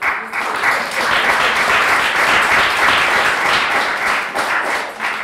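Audience applauding: many people clapping at once. It starts suddenly and begins to die away near the end.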